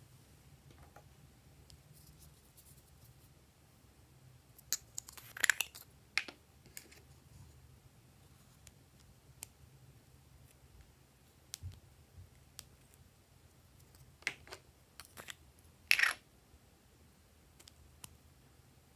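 Small plastic cosmetic pots and a plastic spatula being handled: scattered light clicks and taps, with two louder clattering clicks about five and a half and sixteen seconds in.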